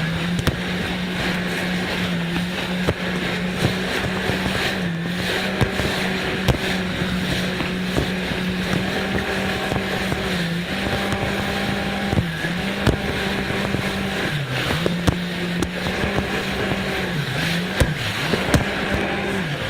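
Jet ski engine running at a steady speed, its note dipping briefly in pitch several times, over a steady hiss of water with scattered sharp clicks.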